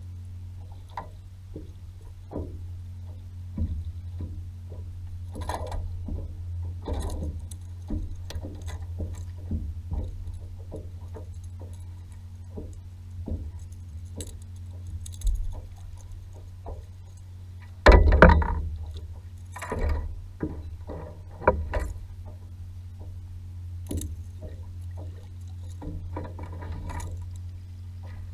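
Water lapping against a paddleboard hull, with scattered knocks and clicks of feet and gear on the board's deck; a run of louder thumps comes about two-thirds of the way in.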